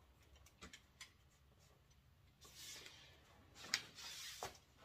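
Faint handling noises from an Evenflo Omni Plus stroller's toddler seat: a few small ticks, then fabric and plastic rubbing, with one sharper click a little past halfway.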